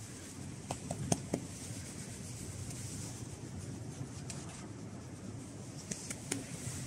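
A hand stroking and rubbing a dog's thick fur close to the microphone: a soft, steady rustling, with a few light clicks about a second in and again near the end.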